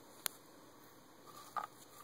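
Kale leaves being handled on a small feeding dish: one sharp click about a quarter second in, then a brief rustle near the end.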